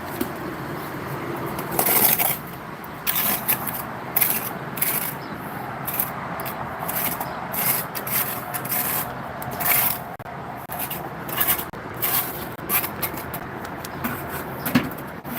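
A mason's trowel scraping and rubbing over wet mortar on brickwork in irregular strokes, the loudest about two seconds in.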